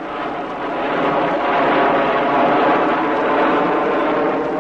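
Jet airliner passing low overhead, its engine noise a dense steady rush that swells to its loudest around the middle and eases slightly toward the end.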